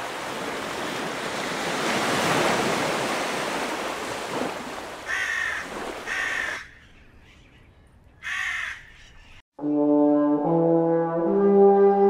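A steady wash of noise that fades out, with a crow cawing three times, followed by a French horn playing a slow phrase of long held notes in the last few seconds.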